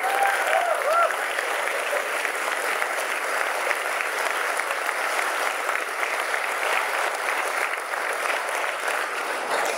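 Audience applauding, steady clapping for about nine seconds that dies away near the end.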